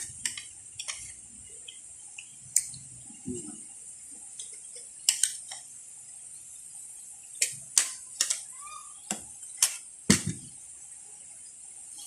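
Cutlery clinking and scraping against a plate while eating: about ten short, sharp strikes spaced irregularly, most of them in the second half.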